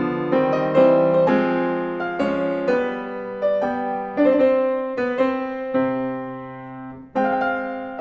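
Solo grand piano playing classical music: chords and melody notes struck about every half second, each ringing on and dying away. A phrase fades out a second before the end, and a new chord is struck just after.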